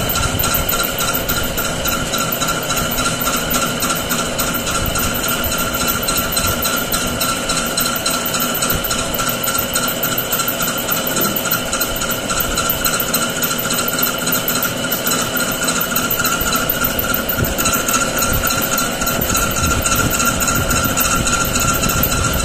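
Manual metal-turning lathe running steadily: a constant high whine in several tones with a fast, even rattle.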